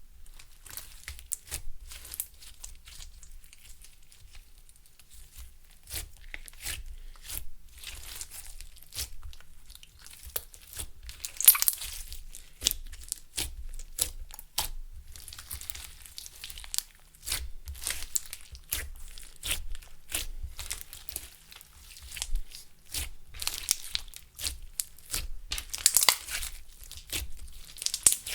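Clear slime being squished, stretched and folded by hand with makeup and glitter mixed in: a dense run of small sticky clicks and pops, louder about eleven seconds in and again near the end.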